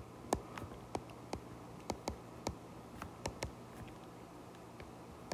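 Stylus tapping and clicking on a tablet screen while handwriting: about a dozen faint, irregular sharp clicks.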